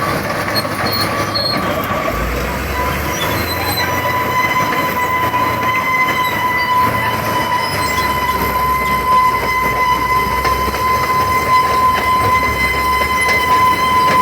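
Caterpillar D7R crawler bulldozer running, its steel tracks and undercarriage giving a steady, high-pitched metallic squeal over the low rumble of the diesel engine.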